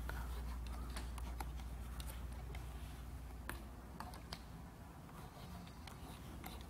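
Faint, scattered clicks and light taps of a plastic stylus on the glass of a Huion Kamvas GT-191 pen display as colors are picked, over a steady low hum.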